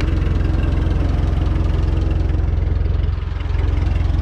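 1947 Ford 8N tractor's four-cylinder engine idling steadily with even firing pulses, briefly dipping a little about three seconds in.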